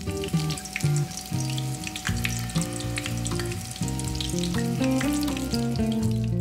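Panko-breaded pork-and-cheese cutlets deep-frying in hot oil: a dense, steady crackling sizzle of bubbling oil. Background guitar music plays underneath.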